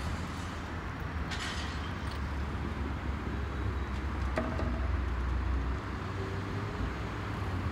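City street ambience: a steady low rumble of road traffic, with a couple of brief faint scuffs and ticks.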